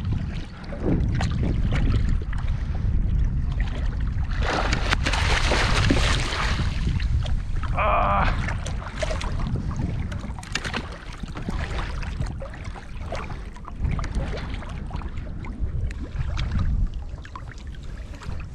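Wind buffeting the microphone over choppy water, with water slapping and splashing around a plastic kayak; a louder rush of splashing comes about four and a half seconds in and lasts a couple of seconds.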